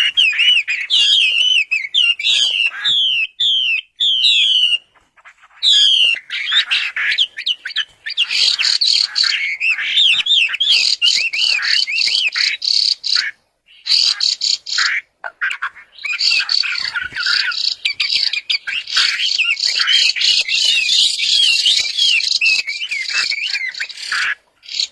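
A songbird singing a long, varied song of rapid, repeated whistled notes that swoop up and down, with brief pauses about five seconds and about fourteen seconds in.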